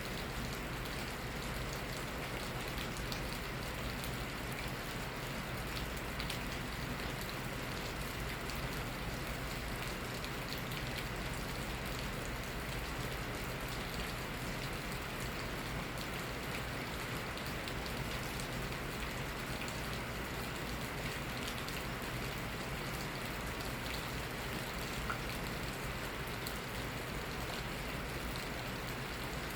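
Steady spring rain falling, a constant patter with many fine drop ticks and no change in intensity.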